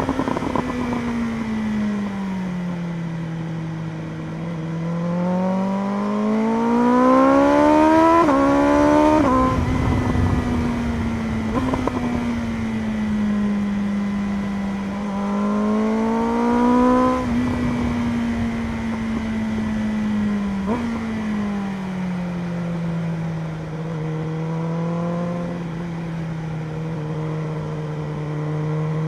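BMW M1000RR superbike's inline-four engine under way, its note rising as the bike accelerates and dropping sharply at each upshift, as around eight, nine, seventeen and twenty-one seconds in. In between it eases off and holds a steadier cruising note, and it starts climbing again near the end.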